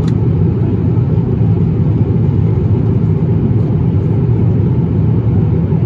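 Steady low rumble of an Airbus A350-1000 airliner in flight, heard inside the cabin: engine and airflow noise.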